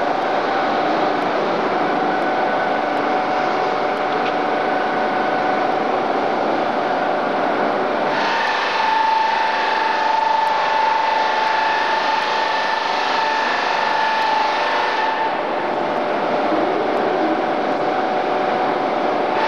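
Autopulit automatic polishing machine running, its motor-driven polishing heads giving a steady mechanical hum with a whine. From about eight seconds in until about fifteen the sound turns brighter and higher, with a stronger whine.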